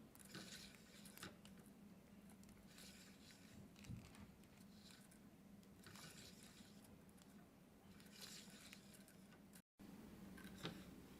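Faint rustling and light ticks from small objects being handled, coming in short clusters every second or two over a low, steady hum; the sound drops out briefly near the end.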